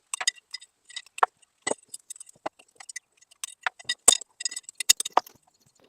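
Irregular metallic clicks and taps of a screwdriver working the retaining tabs of a chrome Mopar Sport hubcap, bending them straight to free the centre piece.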